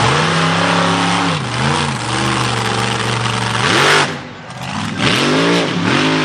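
Supercharged, alcohol-fuelled big-block Chevy V8 of a mega mud truck revving hard under throttle. The pitch climbs and falls in several blips, peaking loudest about four seconds in, then dropping sharply as the throttle is lifted before it revs up again.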